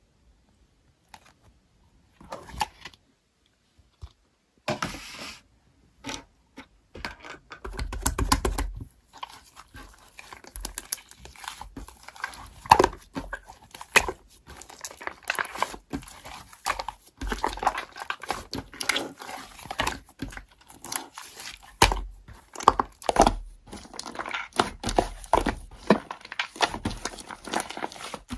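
Slime being squished and pressed by hand: irregular crackling and popping clicks, sparse at first, then dense and nearly continuous from about a quarter of the way in.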